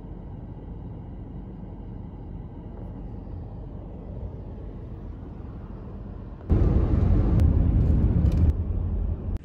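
Car driving on a highway: a steady low road rumble, then, about two-thirds of the way in, a sudden cut to much louder driving noise that stops abruptly near the end.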